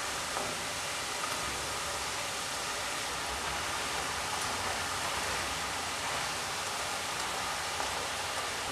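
Rice-flour murukku spirals deep-frying in hot oil in a nonstick wok: a steady sizzle of bubbling oil.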